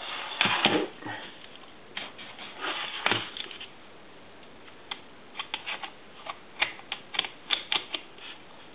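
Hard plastic clicks and rattles of an action-camera bracket being handled and clipped onto a helmet light mount. There are bursts of handling noise in the first second and again about two to three seconds in, then a string of separate sharp clicks about five to eight seconds in.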